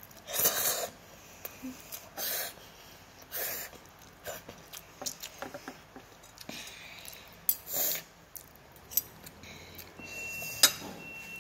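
A young girl eating fiery Samyang spicy instant noodles: several short slurps and sharp breaths from the chilli heat, with a spoon clinking on the plate near the end.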